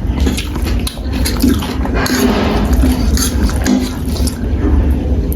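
Close-up eating sounds: wet slurping and chewing of spicy instant noodles, with small clicks of cutlery against the bowl.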